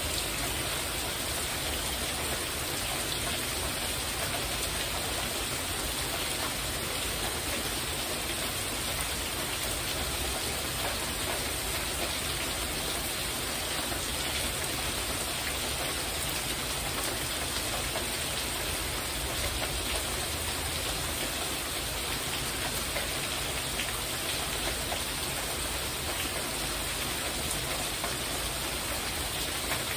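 Heavy rain falling steadily on a porch roof, an even unbroken hiss of rain.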